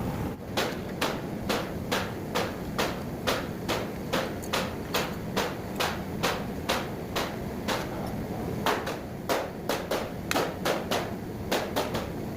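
A steady run of sharp knocks, about two a second, which come faster and less evenly from about eight seconds in.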